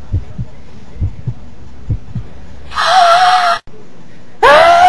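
A few dull low thumps, then two loud shrill screams: the first cuts off abruptly, the second starts with a rising pitch and holds near the end.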